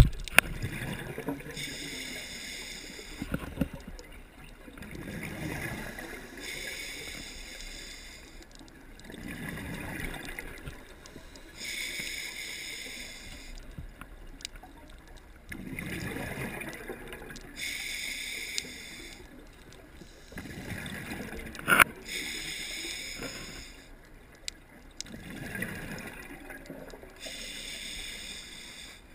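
Scuba diver breathing through a regulator underwater: a hissing inhale and a gurgle of exhaled bubbles, repeating about every four seconds. A single sharp knock comes about three quarters of the way through.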